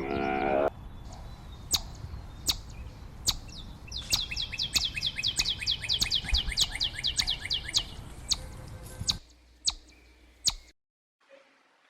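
A bird calling in sharp, downward-sweeping chirps, spaced apart at first, then a fast run of about five a second lasting some four seconds, then a few more single chirps. It opens with a short pitched call, the loudest part, and the sound cuts off a little before the end.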